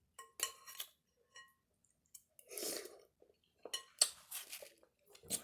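Close-up eating sounds: utensils clinking on a dish with a short ring near the start, then chewing and mouth noises in scattered spells.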